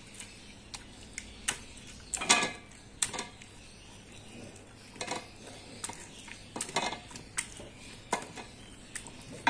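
Wooden masher pounding boiled mutton in a metal pot, giving irregular knocks and clicks of wood against the pot as the meat is mashed into shreds.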